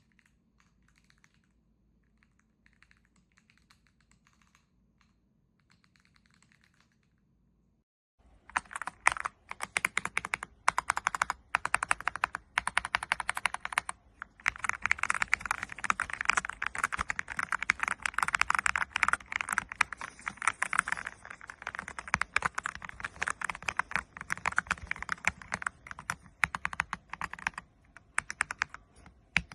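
Typing on an AULA F99 mechanical keyboard: faint, sparse keystrokes for the first several seconds, then fast, loud, continuous typing from about eight seconds in.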